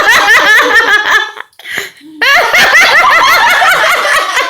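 Loud laughter in two long bouts of quick, repeated laughs, with a short break about a second and a half in.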